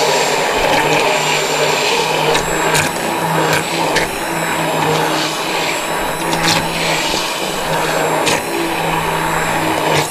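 Electric hand blender running steadily as it blends mango pulp into yogurt in a stainless steel bowl to make mango lassi, with a few short sharp clicks along the way.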